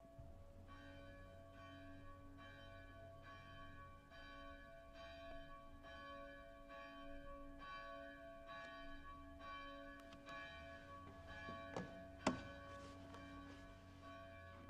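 Church bell ringing faintly in a steady series of strikes, about one a second, calling to the start of the service. A sharp knock sounds about twelve seconds in.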